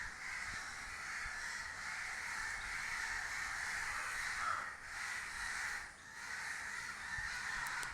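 Crows cawing in a dense, overlapping chorus that barely breaks, with two short lulls in the second half.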